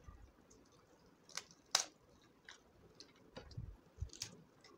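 Crisp papad crackling as it is broken up: a few sharp crunches, the loudest about two seconds in, then smaller crackles and soft thuds of food being mixed by hand.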